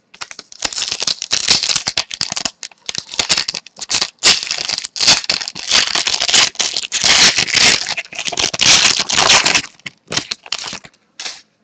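Crinkling plastic packaging being handled in irregular bursts, with short pauses, for about nine and a half seconds, then a few faint rustles.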